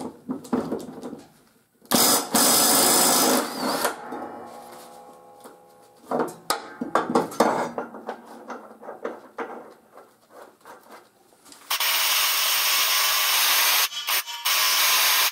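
Cordless impact wrench hammering on a mower blade bolt in two loud runs: about two seconds near the start, and a longer run from about twelve seconds on. Short sharp clicks come in between.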